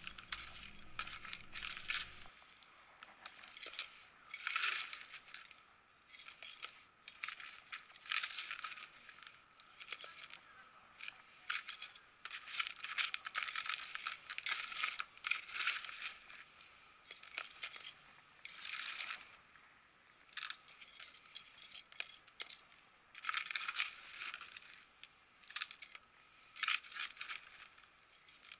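Metal hand trowel stirring and scraping gritty potting mix (soil with decomposed-granite masato grit) in a plastic tray: repeated gritty rattling strokes, about one every second or two.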